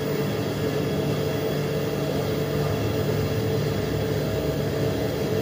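Electric water-pump motor running dry, with no water in it, giving a steady, noisy hum with a droning tone.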